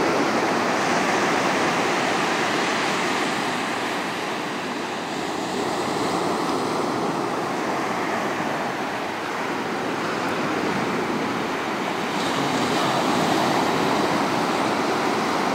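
Ocean surf breaking on a sandy beach: a steady wash of noise that slowly swells and eases as the waves come in.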